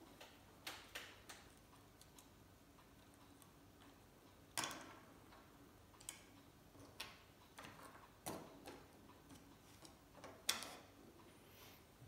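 Scattered small clicks and taps of a plastic gas lighter's parts being handled and pulled apart, the sharpest about halfway through and again near the end, over near silence.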